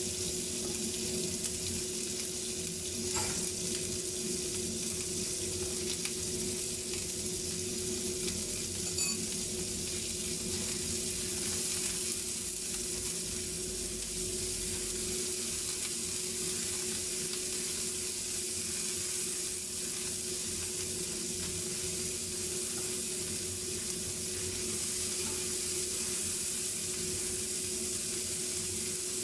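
Lumpiang shanghai spring rolls deep-frying in a pot of bubbling oil, with a steady sizzle, while diced meat sizzles in a flat pan beside them as it is stirred with a utensil. There are a couple of faint clicks, and a steady hum runs underneath.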